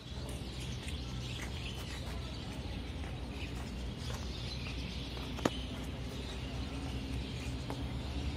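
Small birds chirping on and off over a steady low background hum, with one sharp click about five and a half seconds in.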